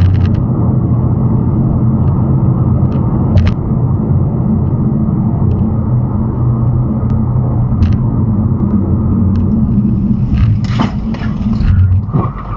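Steady rumble of road and engine noise inside a car cabin at highway speed, with occasional light clicks. Near the end, a few sharp noises break in as the car brakes hard.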